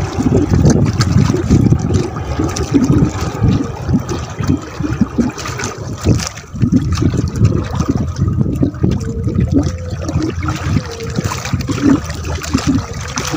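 Sea water lapping and splashing against the hull of a small boat, an uneven churning that never settles.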